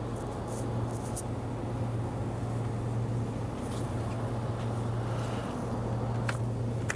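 Steady low hum of supermarket refrigerated display cabinets along a chilled aisle, with a few faint clicks.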